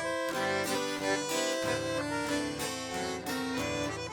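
Instrumental sertaneja music: an accordion playing a melodic solo passage over plucked-string accompaniment, its notes changing every fraction of a second.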